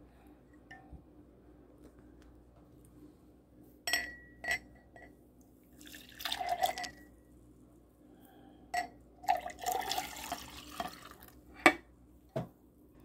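Frothy blended juice poured from a glass jug into a drinking glass in two spells, with glass clinking twice before the first pour and a sharp glass clink near the end.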